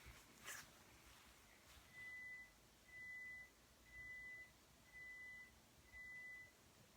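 Microwave oven beeping five times, about one beep a second, each a faint steady high tone lasting about half a second: the microwave's end-of-cycle signal.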